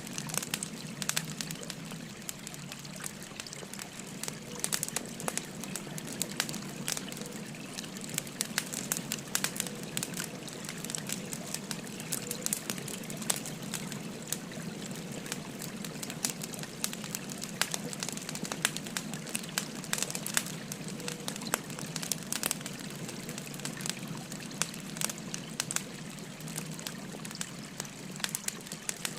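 Burning firewood crackling and popping in many irregular sharp snaps, over the steady babble of a flowing stream.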